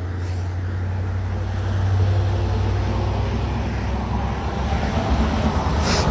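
Steady low rumble of highway traffic at the roadside, growing somewhat louder, with a short sharp noise near the end.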